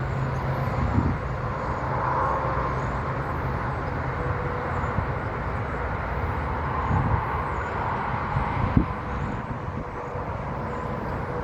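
Steady outdoor rumble of distant road traffic mixed with wind, with faint high chirps scattered through it.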